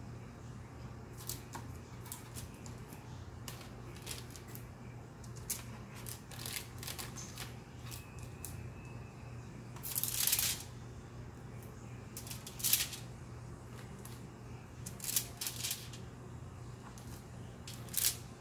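Parchment paper rustling with soft taps as cookie dough balls are set down in rows on a lined baking sheet. A few louder rustles come about ten seconds in and near the end.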